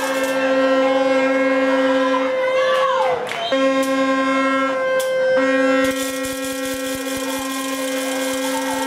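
Long, sustained horn blasts from the stands: one steady horn tone runs the whole time, dipping in pitch and recovering about three seconds in, while a second horn about an octave lower sounds on and off beneath it. A fast rattling joins about six seconds in.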